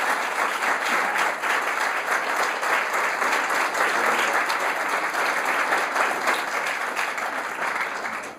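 Audience applauding, a dense, steady clatter of many hands clapping that dies away near the end.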